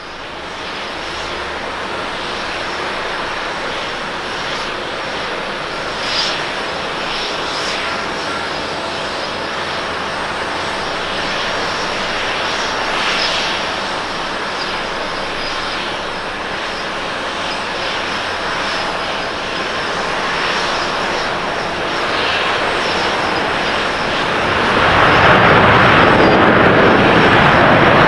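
Japan Airlines Boeing 787-8 Dreamliner's GEnx turbofan engines running on final approach, a steady jet noise growing slowly louder as it comes in. Near the end the sound turns suddenly louder and rougher as the jet touches down and rolls out on the wet runway, spraying water.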